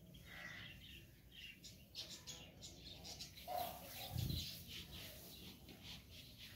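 Small birds chirping on and off, with a soft low thud about four seconds in as a metal pan of wheat chaff is tipped onto a heap of soil.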